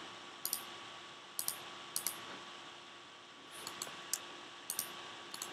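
Computer mouse button clicking, a click every half second to a second, most of them quick double ticks of press and release, over a faint steady hum.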